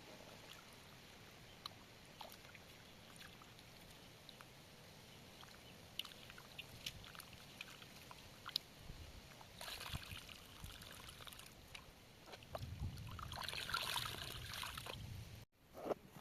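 Faint handling noise with scattered small clicks and knocks, then water sloshing and splashing in two spells, the second and louder one near the end, which cuts off abruptly.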